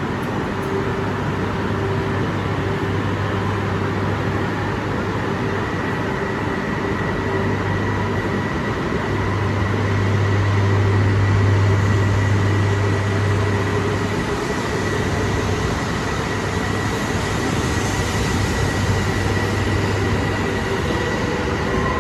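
Electric train at a station platform: a steady running rumble with a constant electrical hum and whine. The hum swells for a few seconds near the middle.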